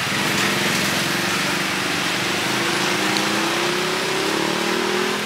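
A small engine running, its pitch rising slowly through the second half, over a steady hiss of street-market noise.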